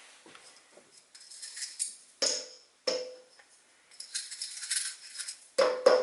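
Metal parts of a coffee grinder's burr assembly being handled, rattling and knocking, with two sharp knocks about two seconds in and a longer rattle later, as loose coffee grounds are cleaned out. Near the end a louder clatter with a short ringing note.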